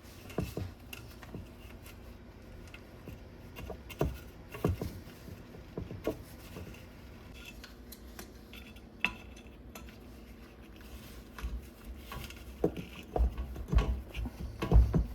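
Irregular metal clinks and knocks of hand tools working a plastic blower wheel loose from a rusty motor shaft, with heavier low thumps near the end.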